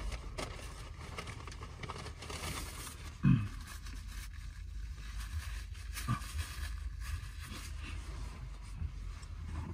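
A man blowing his nose hard into a paper napkin, once about three seconds in, with a softer second blow about three seconds later, over a steady low hum in the car's cabin.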